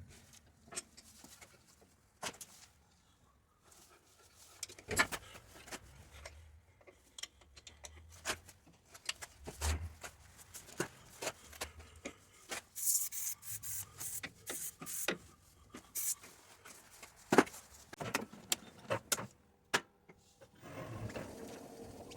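Irregular clicks, knocks and short scrapes of tools and metal parts being handled, with one louder knock late on.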